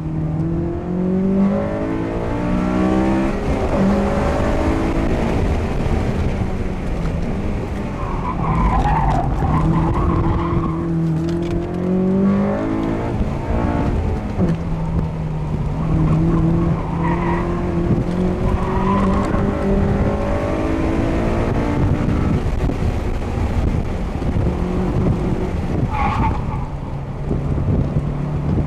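2006 Honda Civic Si's 2.0-litre four-cylinder engine heard from inside the cabin, driven hard, its pitch climbing and dropping as it goes up and down through the gears. Tyres squeal through corners several times, most strongly about nine to twelve seconds in and briefly near the end.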